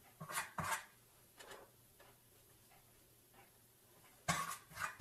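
A few brief knocks and clinks of kitchen items being handled at the counter: two quick ones near the start, a fainter one about a second and a half in, and a cluster of louder ones near the end.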